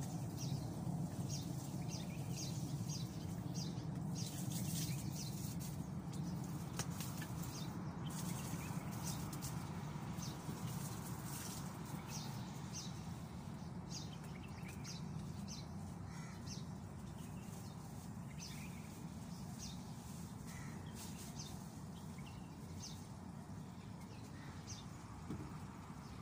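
Bird chirping in short, repeated high notes, about one or two a second, over a steady low rumble that fades slowly.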